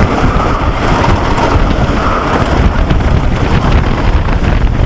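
Wind rushing over a head-mounted microphone together with the steady rumble of a wooden roller coaster train running along its track at speed.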